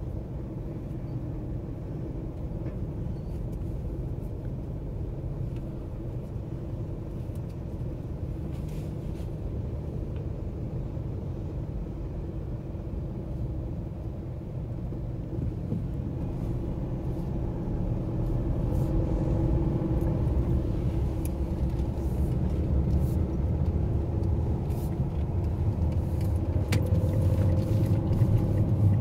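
Car engine and road rumble heard from inside the cabin: idling steadily at first, then growing louder a little past halfway as the car pulls away and drives on.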